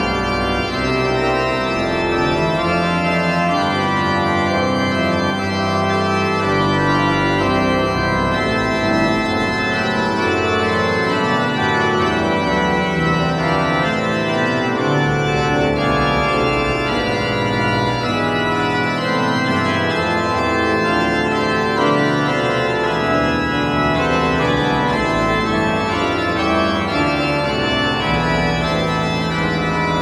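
Background instrumental music with long held, organ-like keyboard chords.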